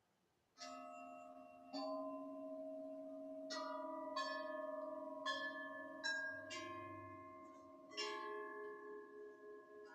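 Metal bells of several pitches struck about eight times, starting about half a second in, each strike ringing on so the tones pile up into a sustained, slowly fading chord.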